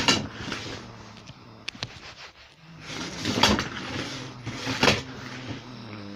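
Handling clatter of hard objects: a knock right away, two light clicks just under two seconds in, then louder clattering knocks about three and a half and five seconds in. A faint low hum runs underneath in the second half.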